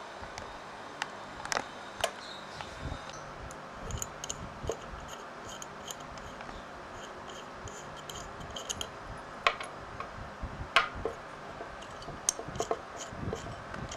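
Small sharp clicks and taps of metal parts being handled on an Aisan carburetor body and its brass jets, over a steady hiss. A faint, regular high ticking, about two to three a second, runs through much of it.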